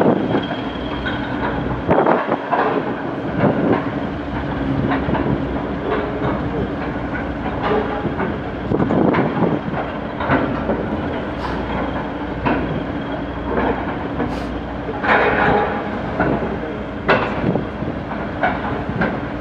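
Heavy anchor chain of a large crane ship rattling and clanking link by link as it runs through the hawsepipe, with irregular louder clanks over a steady low hum.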